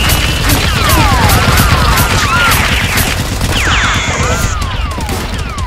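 Movie-style automatic gunfire sound effects standing in for toy blasters: a dense run of rapid shots, with repeated whining sweeps that fall and rise in pitch.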